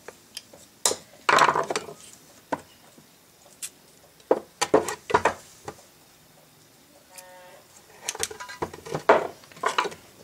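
Metal clinks and knocks from an old cast-metal two-barrel Autolite carburetor and a screwdriver being handled and turned over on a wooden workbench, coming in scattered clusters.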